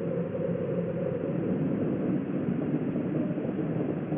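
Space Shuttle Challenger's rocket exhaust, from its solid rocket boosters and main engines at full thrust during ascent, heard as a steady rumbling roar. It comes through a muffled, narrow-band broadcast feed.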